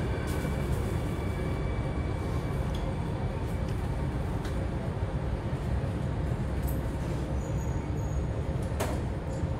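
Inside a Singapore C830C Alstom Metropolis metro train running into a station: a low steady rumble of wheels on rail with faint steady tones above it, and a sharp click about nine seconds in.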